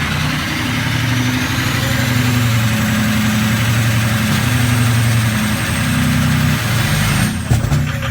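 Ford 6.0L Power Stroke V8 turbo diesel running just after a hard cold start, with a faint whine rising in pitch and a run of sharp knocks near the end. It runs rough because of bad injectors: one cylinder's injector is nearly dead and another is failing.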